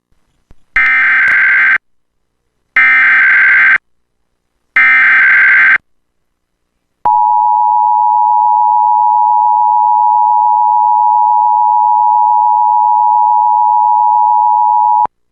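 Emergency Alert System Required Monthly Test tones: three one-second bursts of SAME header data, a rasping digital chirr, a second apart. Then the steady two-tone attention signal holds for about eight seconds and cuts off sharply.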